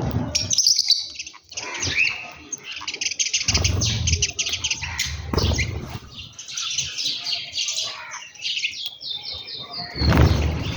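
A flock of small birds chirping and twittering busily, with rapid overlapping calls. Low rumbles come in about four to six seconds in and again near the end.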